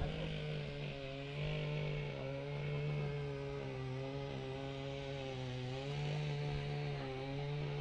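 A motor running steadily at an even pitch.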